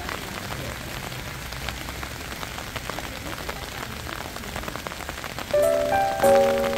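Rain pattering steadily on a hard surface, with many small drop ticks. Background music with bell-like, piano-like notes comes in near the end.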